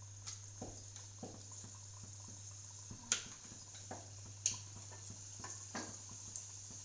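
Samosas frying in hot oil in a metal kadhai: a steady, light sizzle with small crackles, broken by two sharp clinks against the pan about three and four and a half seconds in.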